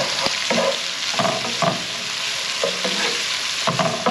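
Sliced bell peppers and onions sizzling in sausage grease in a deep pan with a steady hiss. A wooden spatula stirs them in several separate scraping strokes against the pan, as the vegetables sweat until tender and translucent.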